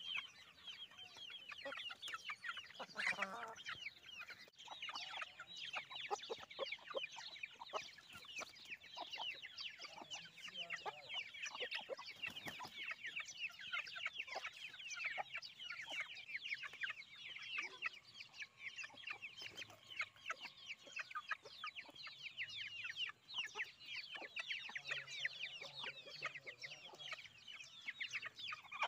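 A group of young chicks peeping nonstop, many short high chirps overlapping each other.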